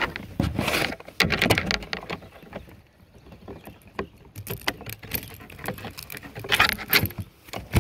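Irregular splashing, knocking and rustling as a hooked trout is landed in a mesh landing net at the side of a kayak and thrashes.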